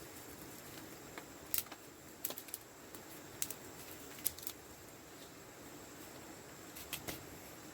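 Dry kindling and tinder being gathered and handled for a fire, giving a scattering of light clicks and snaps over a faint steady hiss.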